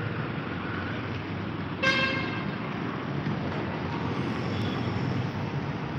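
KTM Duke motorcycle ride: steady engine and road noise, with one short horn toot about two seconds in.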